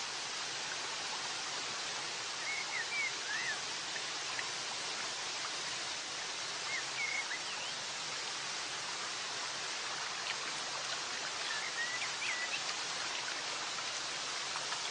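Steady rush of running water, with a few short high bird chirps over it.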